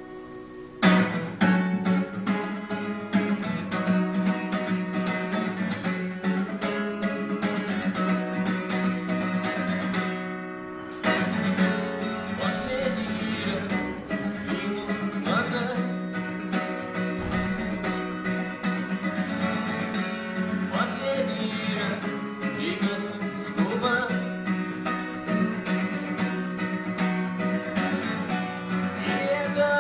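Acoustic guitar strummed, with a man singing along. The playing drops off briefly about ten seconds in, then carries on.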